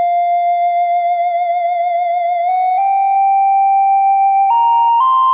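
Background music: an electronic melody of long held notes with a wavering pitch, stepping up to higher notes in the second half.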